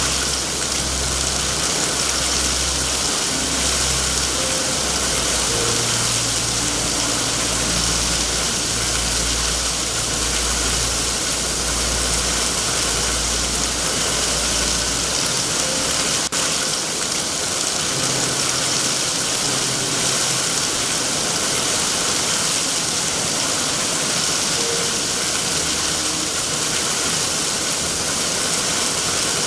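Steady heavy rain hissing, with a low throbbing rumble underneath that fades out about halfway and comes back briefly twice later. A single sharp click sounds about halfway through.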